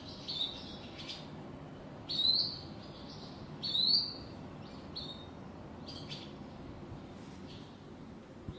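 Bird calling: a series of short high chirps, with two louder rising calls about two and four seconds in and fainter chirps after, over a faint steady background noise.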